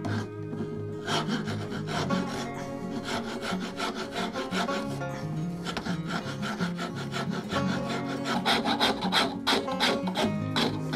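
Coarse wood rasp scraping across the end of a small wooden block held in a bench vise, in repeated push strokes that come faster and louder near the end, rough-shaping a curve. Background music plays underneath.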